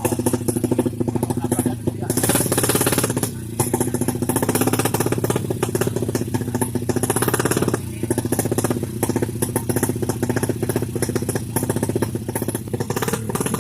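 Drag-racing motorcycle engine running loud, with rapid exhaust pulses and brief dips in level twice.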